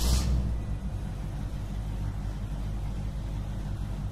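Logo sound effect: a quick whoosh at the very start, then a steady deep rumbling drone that holds without change.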